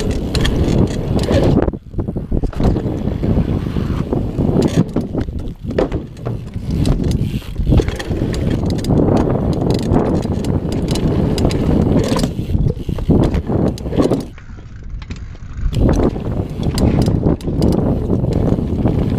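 Raw on-bike action-camera sound of a Vimana dirt-jump bike ridden fast over dirt trails: tyres rumbling over the ground, wind on the microphone, and frequent rattles and knocks from the bike over bumps. Briefly quieter about fourteen seconds in.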